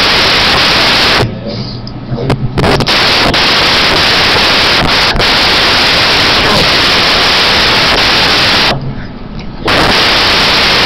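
Loud, steady static hiss that drops out twice for about a second, with a few faint clicks.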